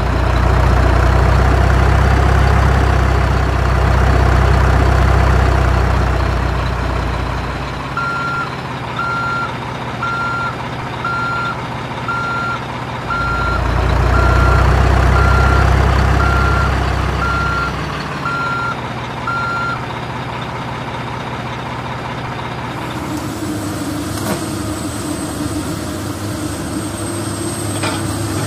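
Heavy truck engine running, swelling louder twice, with a reversing alarm beeping about once a second for roughly twelve seconds in the middle. Near the end it settles into a steadier engine hum with a thin high whine.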